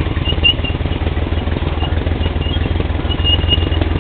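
ATV engine running at a steady throttle, a dense low rumble of rapid firing pulses, with faint short high squeaks repeating through it.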